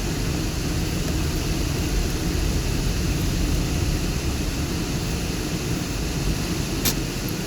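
Car engine idling: a steady low rumble, with a single click near the end.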